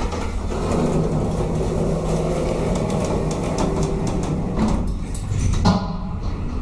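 1984 Valmet hydraulic lift car travelling down with a steady low rumble and rattling. About six seconds in there is a knock and the rattling stops as the car comes to rest.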